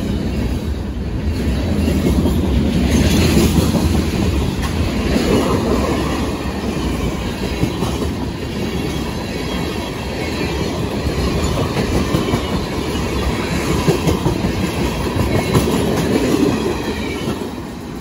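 CSX freight train's cars rolling past close by: steel wheels clattering over the rail joints over a steady rumble. The noise eases off near the end as the last car goes by.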